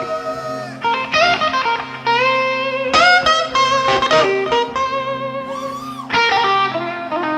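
Live blues on electric guitar: a lead guitar plays short phrases with string bends and vibrato over a sustained low backing chord.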